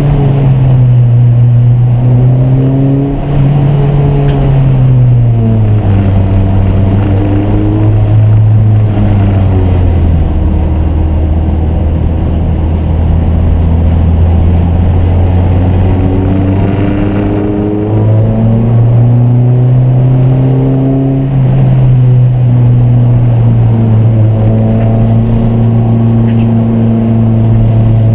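Race car engine running hard, its pitch sliding down and stepping back up with throttle and gear changes through a lap.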